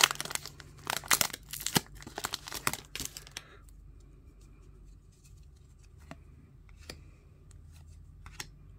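Foil-lined trading card pack wrapper crinkling and tearing as it is pulled open, for about the first three and a half seconds. Then it goes quieter, with scattered light clicks as the cards are handled and sorted.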